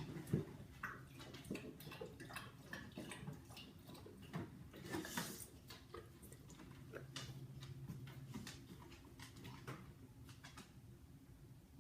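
A dog moving about: scattered light clicks and taps, with a brief rustling hiss about five seconds in.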